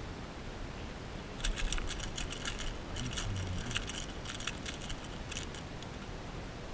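Rapid, irregular metallic clicking and jingling of fishing tackle, starting a little over a second in and lasting about four seconds, over a steady hiss of wind and water.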